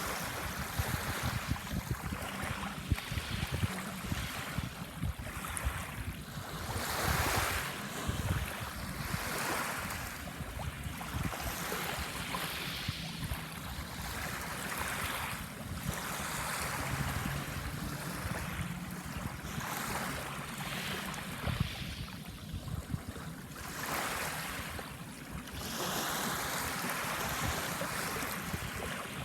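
Sea waves breaking and washing onto a sandbar, the surf swelling and fading every few seconds.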